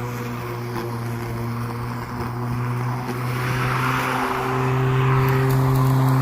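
Hart 16-inch 20-volt cordless lawn mower running, its electric motor and blade giving a steady hum with a rushing sound of cut grass on top. The sound grows louder in the second half.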